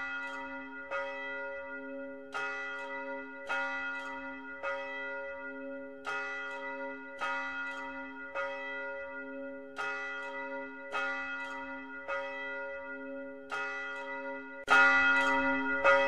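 A single bell tolling, struck about once a second, each stroke ringing on into the next. Near the end it gets louder as a deeper sound joins in.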